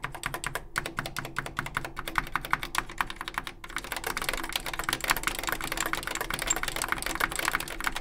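Fast typing on a Chyron 4044's vintage Key Tronic foam-and-foil linear switches, whose foam pads have rotted away, so the keys bottom out on the bare slider. The steel mounting plate can be heard in each stroke. There is a brief break about three and a half seconds in, then the keystrokes come quicker.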